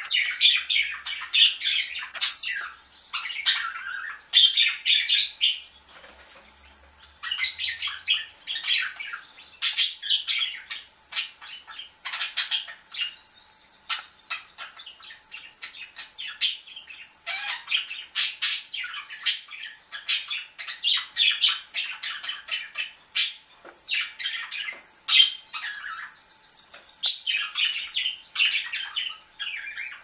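Budgerigars and a canary calling in a cage: a busy stream of short, rapid calls in bursts, with a lull about six seconds in.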